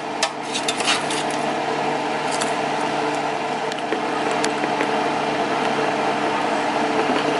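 Bella 3.2-quart air fryer running, its fan giving a steady hum with a whirring rush of air. A few light clicks and knocks in the first second or so, from chicken wings going into a glass bowl and its lid going on.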